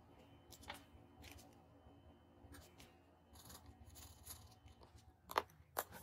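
Pen tips scratching on paper in short strokes, then two sharp clicks near the end as plastic pens are set down.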